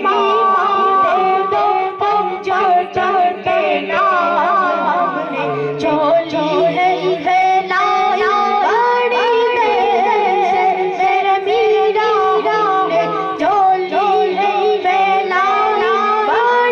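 A boy singing an Urdu devotional song in praise of the saints into a microphone, with a man's voice singing along.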